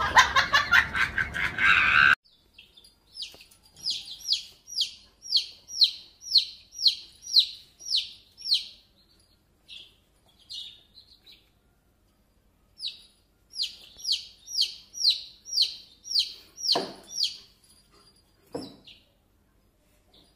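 A domestic chick peeping: two long runs of short, high, falling peeps, about two a second, with a pause of a few seconds between them. In the first two seconds there is music and a voice instead, and near the end there are two short low sounds.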